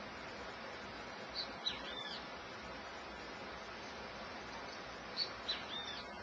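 A bird calls twice, the same short phrase of quick high pitch sweeps, about four seconds apart, over a steady hiss.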